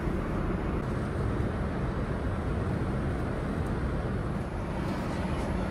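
Steady in-flight cabin noise of a Boeing 787-8 airliner: an even, deep rush of air and engine noise.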